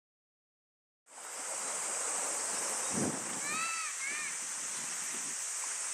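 Sea water washing and splashing against the shore with wind, under a steady high-pitched hiss. It fades in about a second in, with a low wave splash about three seconds in, followed by a few short chirping calls.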